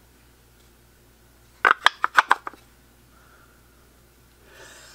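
Wooden box of a sharpening stone being closed: a quick cluster of five or six light wooden clacks about two seconds in as the lid goes on, then a faint rustle of handling near the end.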